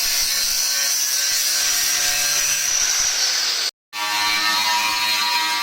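Power tool grinding stainless steel: a steady grinding hiss over a motor whine. The sound cuts off abruptly a little before four seconds in and resumes a moment later with a lower, more tonal whine.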